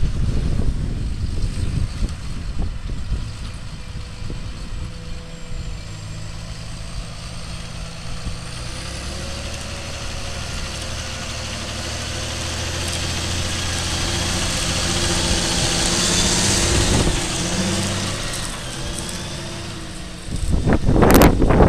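John Deere 7830 tractor's six-cylinder diesel engine running steadily under load while it pulls a Strom Terraland cultivator through the soil, growing louder as it comes close and then easing off. Wind buffets the microphone at the start, and a loud rush of noise comes shortly before the end.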